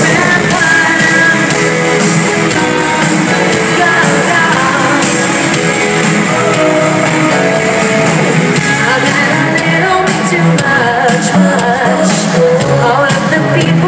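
Live pop concert music with a singer and band, loud and steady, recorded from within the arena crowd.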